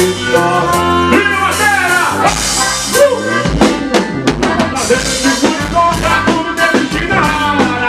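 Forró band music: a driving drum-kit beat with snare and bass drum under a melodic instrumental line.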